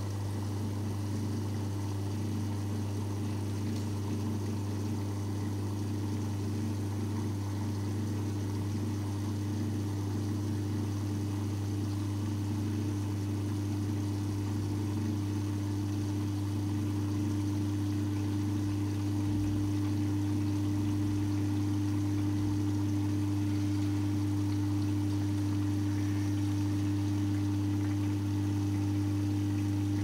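Electriq EQDWTTGF tabletop dishwasher running its wash: a steady pump hum with water spraying and splashing inside the tub, growing a little louder about two-thirds of the way through.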